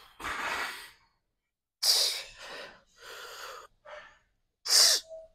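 A person's hard, forceful breathing while straining through hamstring curl reps: a run of noisy breaths, with two sharp, loud exhales about two seconds and about five seconds in.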